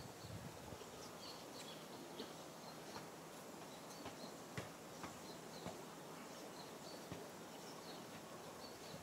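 Faint outdoor ambience: short, high chirps of small birds scattered throughout, with a few light clicks over a steady hiss.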